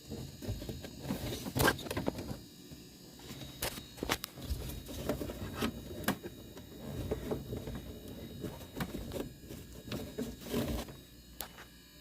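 Irregular clicks, knocks and rustling of hands handling tools and parts at close range, with a low rumble in between.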